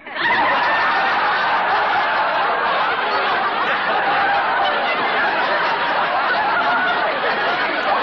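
Live radio studio audience laughing at a punchline: a long, steady laugh from a whole crowd that breaks out suddenly and holds until the dialogue resumes.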